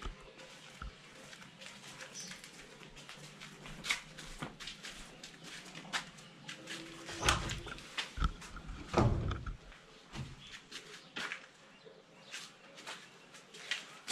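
Scattered footsteps and small clicks on a gritty concrete floor, then a few louder knocks about seven to nine seconds in as a wooden window casement is unlatched and swung open.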